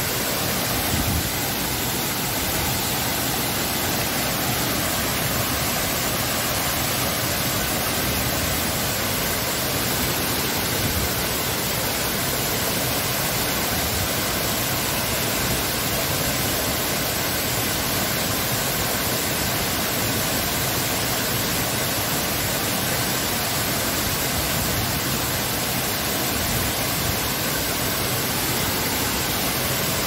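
Waterfall spilling in several streams over rock steps into a pool: a steady, unbroken rush of falling water.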